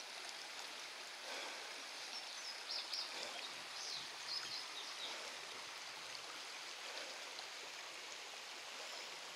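Creek water running steadily where two creeks flow together, an even rushing with a few short high-pitched sounds about two to five seconds in.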